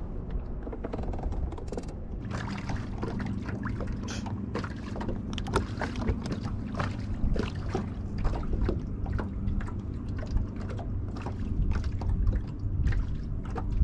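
Small waves lapping and slapping against the boat's hull in irregular splashy taps, over steady wind noise on the microphone and a faint low steady hum.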